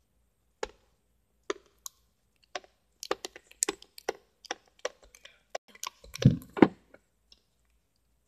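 White slime being kneaded and pressed by hand in a plastic tub, giving irregular sticky clicks and crackling pops. They are sparse at first, come thick and fast from about three seconds in, and end with two louder, deeper pops.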